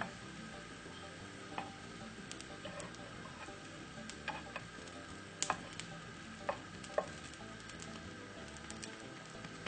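Pancakes frying in olive oil in a non-stick pan: a faint steady sizzle with scattered sharp clicks and pops.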